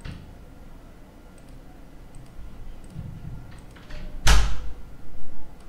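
A few faint clicks, then a sudden loud thump a little over four seconds in, with a second, weaker knock about a second later.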